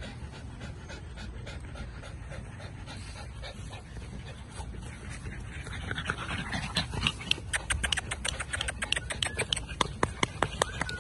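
American bully puppy panting, quickening into fast, regular breaths, about four or five a second, that get louder about halfway through.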